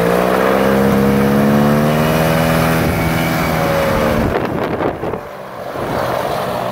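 Paramotor engine driving the caged propeller of a powered-paragliding trike, running at raised throttle as the trike taxis, its pitch rising slightly and then easing. A little after four seconds in it drops away through a short noisy patch to a quieter, steadier engine drone.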